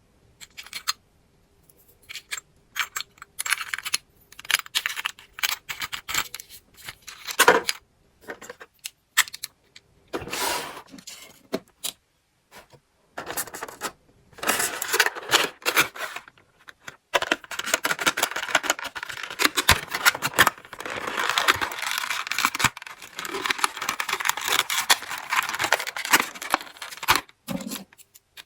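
Small plastic toys and their packaging being handled: scattered clicks and clinks in the first half, then several seconds of continuous crinkling and tearing of packaging.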